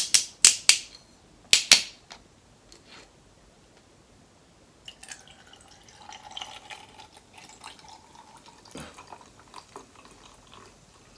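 Several sharp clicks and hisses in the first two seconds, the loudest sounds here. From about five seconds in, a glass bottle of sparkling blackberry juice drink is poured over ice into a glass, the fizzy liquid splashing and crackling on the ice.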